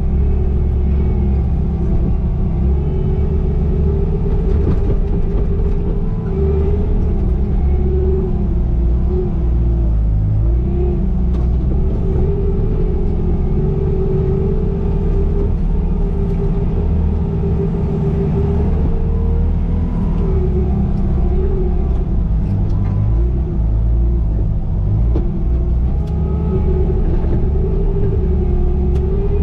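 Bobcat T595 skid steer's diesel engine running steadily while working: a continuous low rumble with a higher tone that wavers slightly in pitch as the load changes.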